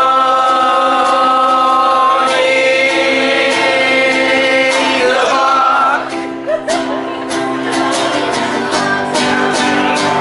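Live pop-punk band music with several voices singing long held notes. About six seconds in, a beat of sharp hits comes in under the singing.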